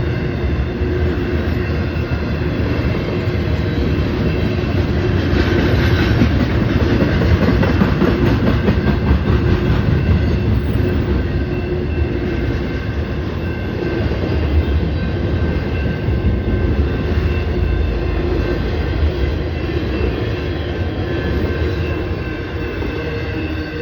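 Union Pacific intermodal freight train rolling past: a steady rumble of steel wheels on rail with rapid clicking from the wheels and faint high ringing tones, easing off slightly near the end.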